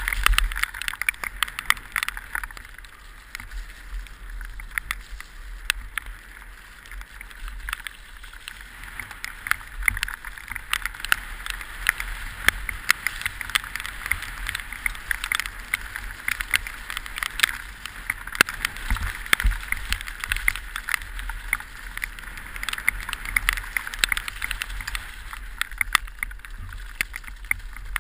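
Orange 223 downhill mountain bike running fast down a wet, rocky trail, heard from a helmet camera: a steady rushing noise with a low rumble of wind on the microphone, and many sharp clicks and rattles as the bike and tyres hit rocks and bumps.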